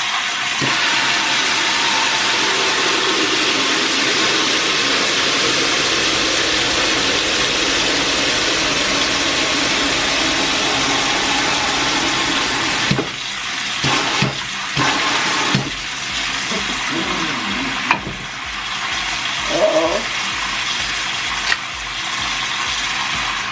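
Tap water running in a steady stream, filling the Keurig's water reservoir. About halfway through, the flow gets a little quieter and uneven, with a few knocks of the plastic reservoir being handled, and it cuts off at the end.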